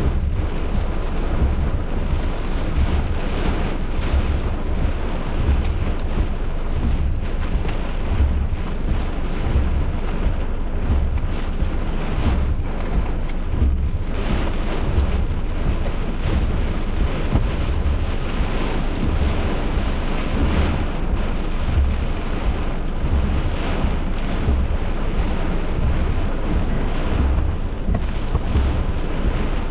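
Severe thunderstorm: a steady, loud rush of wind and rain with a continuous low rumble, and wind buffeting the microphone.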